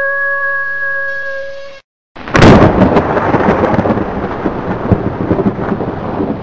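A held, steady horn-like musical tone fades out, and after a moment of silence a loud thunderclap breaks about two seconds in. Thunder and heavy rain carry on after it.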